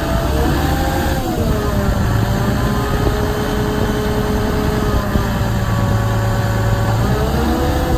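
Motorized drive module of a Mammoet self-propelled trailer (SPT) running, with a steady low hum. Its higher whining note rises and dips about a second in and climbs again near the end, as the engine speed changes.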